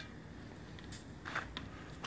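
Quiet background noise with a few faint, brief rustles.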